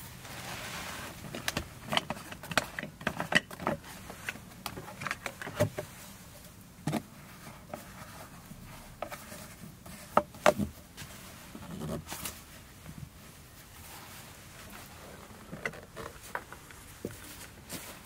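Irregular light knocks and clicks of things being handled, coming in clusters with short gaps between, the sharpest a little past the middle.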